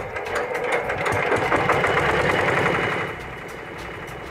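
Recorded sound of a petrol engine running, played through a car stereo's speakers to fake an engine on an electric car. It drops to a quieter level about three seconds in.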